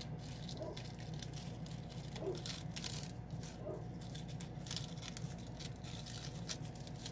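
Press'n Seal plastic wrap being peeled slowly off cardstock by hand: faint crinkling and small scattered ticks over a steady low hum.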